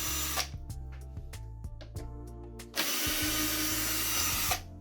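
A power tool whirring in two bursts of about two seconds each, stopping and starting abruptly, over background music with steady low notes and light clicks.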